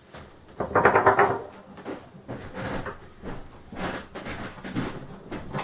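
Handling noises on a plastic cash register: a louder scrape about a second in, then scattered light clicks and knocks as parts around the SD card slot are handled.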